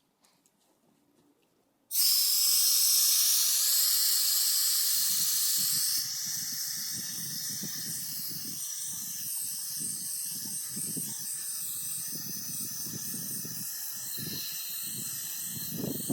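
Handmade jet engine on a test run. A loud hiss starts suddenly about two seconds in, then after a few seconds settles to a quieter hiss with an irregular low fluttering rumble.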